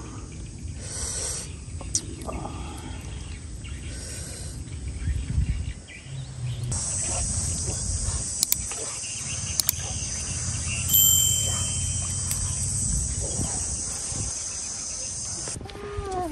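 High, steady insect buzzing that starts about seven seconds in and cuts off near the end, with shorter bursts of it early on, over a low outdoor rumble. A few sharp clicks.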